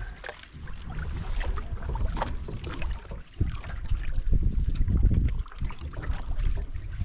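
Wind rumbling on the microphone, loudest a few seconds in, over the light splash and trickle of canoe paddling.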